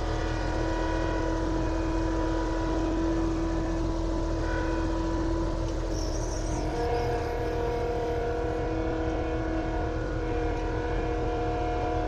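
An engine running steadily, a continuous drone whose pitch shifts slightly about seven seconds in.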